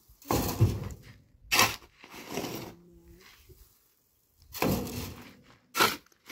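A shovel scraping into a pile of sand and gravel and flinging the load, twice: each time a long gritty scrape followed by a short sharp swish.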